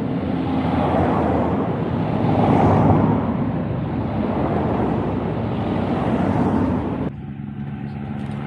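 Race team cars with bicycles on their roof racks driving past on a narrow road: engine and tyre noise that swells and fades as each car goes by, loudest about three seconds in. About seven seconds in the sound drops suddenly to a quieter, steadier low engine hum.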